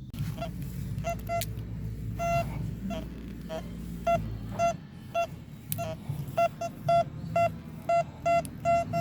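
Metal detector beeping as it passes over a metal target: short, mid-pitched beeps in irregular runs, coming more often and louder in the second half, over a low steady rumble.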